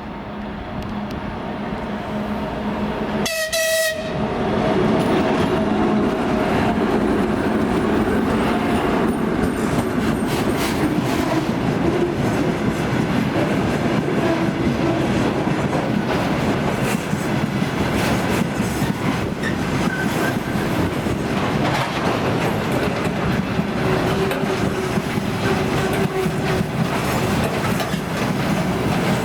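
A 2TE116U twin-section diesel locomotive with a repair train approaches and passes. The diesel drone grows louder, the horn sounds one short blast about three seconds in, and then loud, steady wheel noise with rhythmic clicking over the rail joints runs on as the train rolls by.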